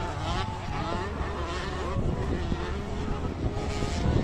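Motocross motorcycle engines revving on a dirt track, several engine notes rising and falling over each other.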